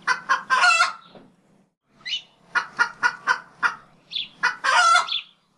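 A series of short, sharp fowl-like calls: about three quick calls at the start, a fast run of about five in the middle, and one longer call near the end.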